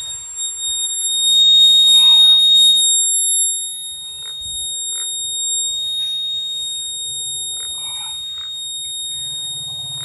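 A 6–12 V active buzzer sounds a steady, high-pitched continuous tone: the home-made fire alarm is triggered because the heated tube-light starter has closed the circuit. It is loudest for the first three seconds or so, then carries on at a lower level.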